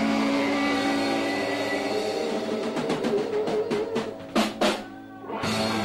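Live rock band ending a song: the band holds a chord, then the drummer plays a snare roll. It closes with two hard accented hits about four and a half seconds in and a last crash near the end that rings out.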